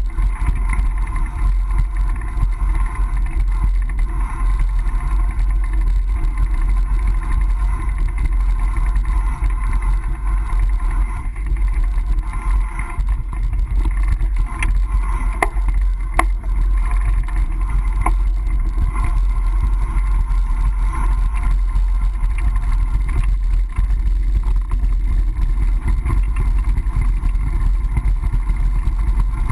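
Steady low rumble of wind and road noise picked up by a GoPro on a moving mountain bike, with a couple of sharp clicks about halfway through.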